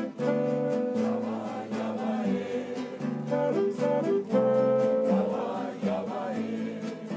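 Small acoustic band playing: a saxophone carries a melody of held notes over strummed guitars, with a regular beat.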